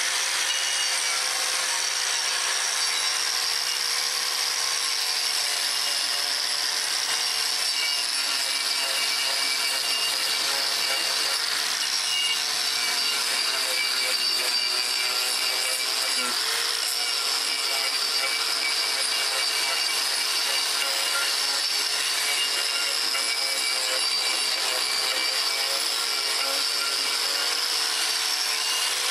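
Electric angle grinder with a carbide disc running continuously while it grinds the bark and outer wood off a log round, a steady harsh grinding whose motor pitch wavers and dips slightly as the disc bears into the wood.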